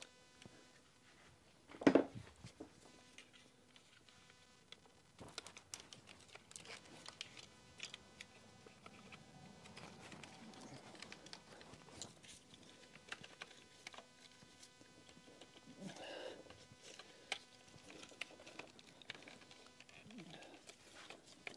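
Small scattered plastic clicks and light rattles of ignition coil packs and their wiring connectors being handled and slid out of a four-cylinder engine's valve cover, with one louder knock about two seconds in.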